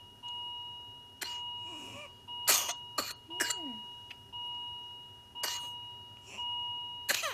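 Baby with whooping cough coughing in short bursts, the loudest about two and a half seconds in, some trailing off in a falling strained sound. An electronic chime repeats about once a second, fading each time.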